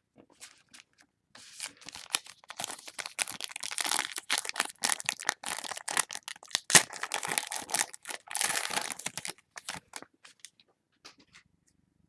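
Foil wrapper of a Panini Prestige football card pack being torn open and crinkled, a crackling rustle lasting several seconds, with a few light clicks and rustles near the end.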